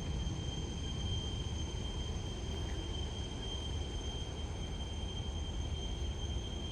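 Steady jet airliner noise: a constant low rumble and hiss with a thin, steady high-pitched whine over it.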